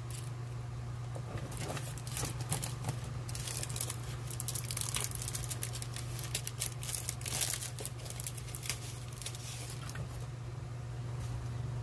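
Crinkling and rustling of a clear plastic sheet of adhesive rhinestones being handled, with scattered light clicks and taps, over a steady low hum.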